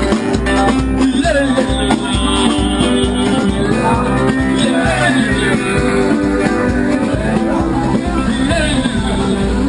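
Street band playing live music: strummed guitar with a singing voice over it.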